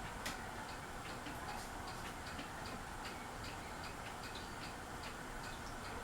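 Fasco Charleston ceiling fan running with a steady whoosh and a light, regular ticking about three times a second, with one sharper click just after the start.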